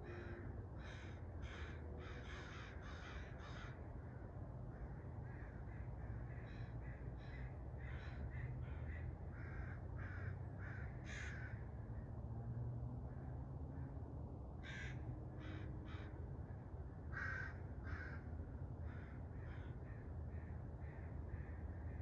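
Crows cawing at daybreak: repeated short harsh calls in quick runs, heaviest near the start and again around the middle and later on, over a steady low rumble.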